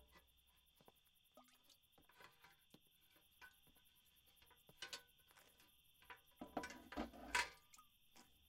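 Footsteps on a barn floor and a metal folding chair being pulled out and set down at a table: scattered soft knocks, then a cluster of knocks and scrapes about seven seconds in, over a faint steady high hiss.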